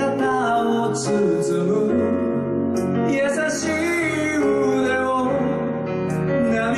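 A male vocalist singing live into a microphone over band accompaniment of keyboard and guitar.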